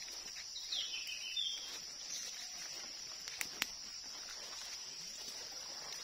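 Tropical forest ambience: a steady high hiss, with a short falling bird call about a second in and two sharp clicks around the middle.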